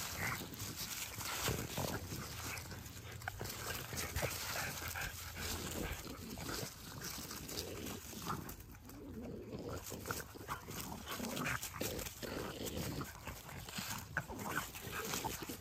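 American Pit Bull Terrier and French Bulldog puppies play-fighting, making many short, irregular dog sounds throughout.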